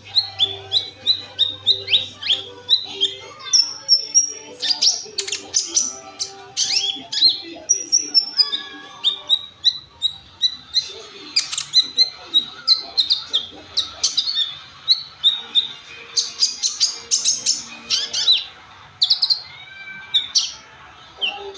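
Kolibri ninja sunbird singing: a fast, busy run of sharp high chirps and short twittering notes, several a second, with a few brief whistled slides.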